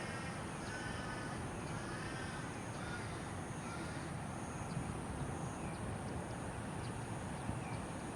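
A bird giving a few short, harsh calls in the first three seconds, then only faint, short high chirps over a steady low background rumble.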